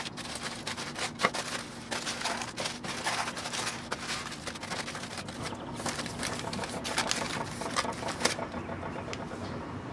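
Aluminum foil crinkling and crackling as it is crimped by hand around the rim of a baking dish, dying away about eight seconds in.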